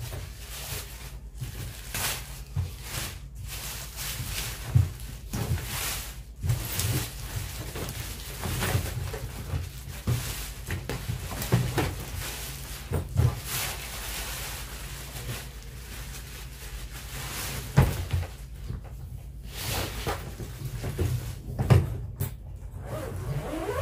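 Clear plastic wrapping rustling and crinkling as it is pulled off a hard-shell suitcase, with a handful of sharp knocks and bumps against the shell.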